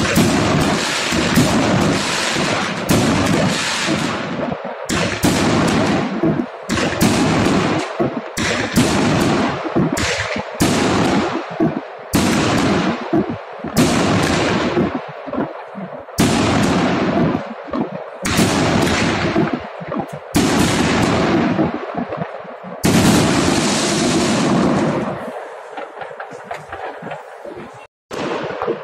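Aerial fireworks bursting overhead one after another, about one or two sharp bangs a second, each fading off quickly. The barrage thins out and quietens near the end.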